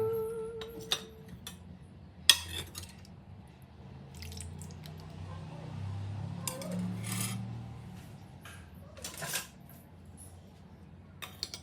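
Kitchenware clinking: scattered sharp clicks and knocks of utensils against pots or dishes, about half a dozen spread through the stretch, over a quiet low hum.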